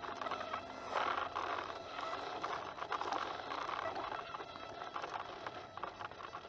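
Electric RC helicopter heard through its onboard camera: the rotor and motor running, a steady rushing hiss with fine crackle.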